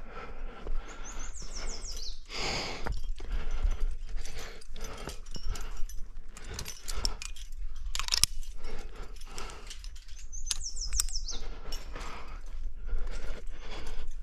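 A rock climber breathing hard in bursts while climbing, with scattered clicks and clinks of climbing gear as a quickdraw's carabiners are handled and clipped to a bolt.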